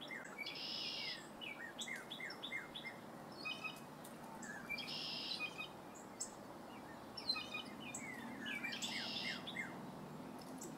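A songbird singing outdoors, its phrase a buzzy trill followed by a run of short falling chirps, repeated three times about every four seconds, over a faint steady low hum of background noise.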